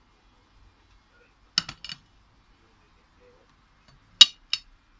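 A few sharp clinks of crockery or cutlery knocking together: a quick cluster of three or four about one and a half seconds in, then two louder ones near the end.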